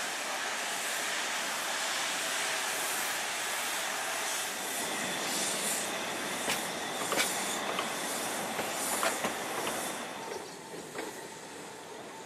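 Steady hiss of steam billowing from a steam locomotive shed. About four seconds in, a narrow-gauge steam train's carriages roll over pointwork, wheels clicking over rail joints and squealing on the curve, and the sound fades near the end.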